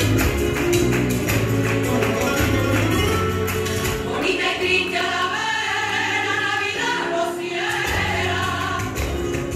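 Flamenco music with a singing voice and sharp, rhythmic hand clapping (palmas) keeping the beat throughout.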